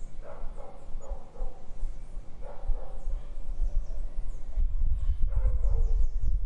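A dog barking now and then, a few short barks spaced out, over a low rumble that grows louder about two-thirds of the way in.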